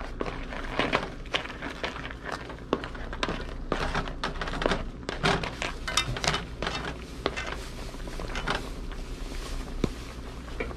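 Boiled crab shells clacking against each other and the aluminum pan as they are stirred with a wooden spatula in simmering coconut milk: a run of irregular clicks and knocks, busiest in the middle.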